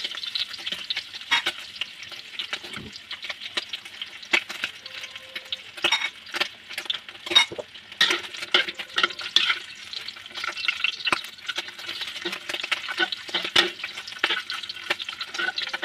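Pork ribs sizzling as they fry in hot oil in a wok, with a steady hiss and constant crackling pops. Tongs and a spatula scrape and click against the wok as the pieces are turned.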